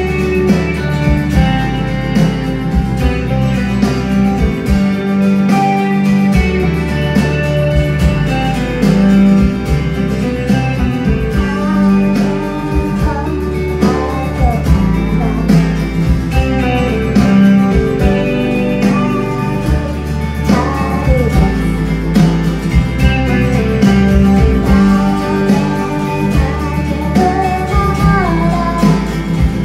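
Live acoustic guitar strummed in a steady rhythm, with a woman singing a melody over it into the microphone.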